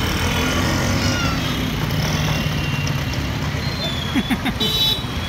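Street traffic: motor vehicle engines running, under a steady low rumble, with a few clicks and a short high-pitched tone near the end.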